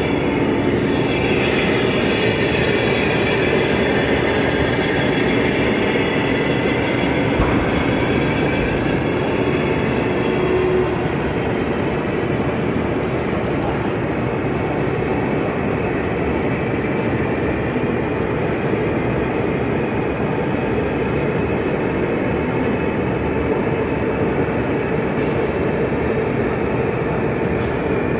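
O gauge model train running along the layout's track, a steady rumble of wheels and wagons.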